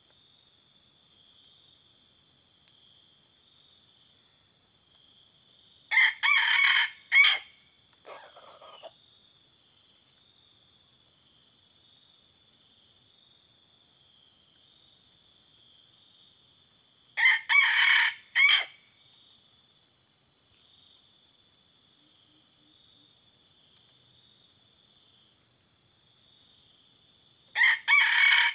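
Decoy junglefowl rooster crowing three times, about every eleven seconds, each crow short and clipped into a few parts. A steady high-pitched insect chorus runs underneath.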